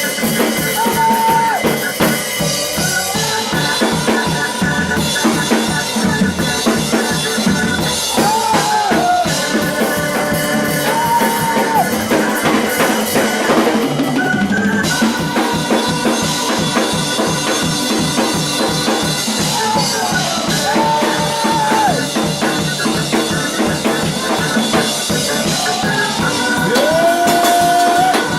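Live gospel worship music: a drum kit keeps a steady, driving beat under sustained keyboard chords, with a held melody line that slides up and down between long notes.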